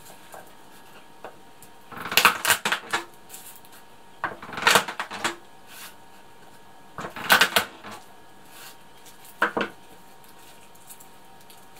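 Garlic cloves being peeled by hand and with a knife on a wooden cutting board: four short bursts of crackling from the dry skins, with light knocks on the board.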